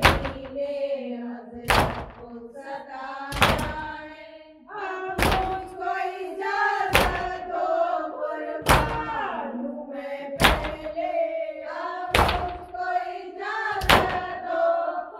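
Matam chest-beating: a heavy open-handed slap on the chest in a steady beat, roughly every second and three-quarters, under a chanted nauha lament.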